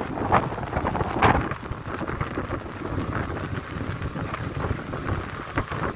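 Heavy rain pouring down, with wind buffeting the microphone. The gusts are strongest in the first second and a half, then ease.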